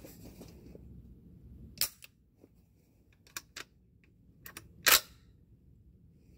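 A PTR 9CT 9mm MP5-clone carbine malfunctioning: a scattering of sharp clicks and cracks, the loudest about two and five seconds in. A round has failed to fire and has not been extracted.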